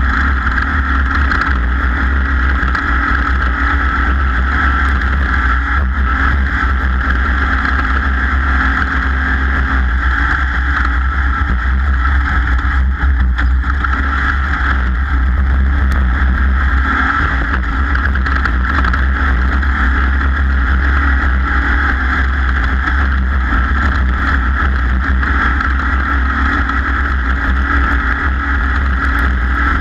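Racing powerboat running steadily under power, its engine holding a constant drone with no rise or fall in pitch.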